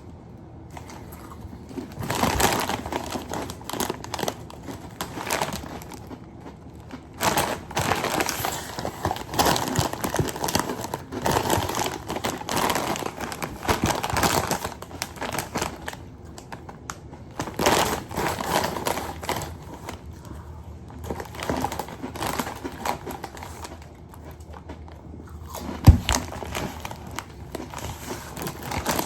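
Plastic chip bag of BBQ Fritos crinkling and rustling in irregular bursts as it is handled. A single sharp knock comes near the end.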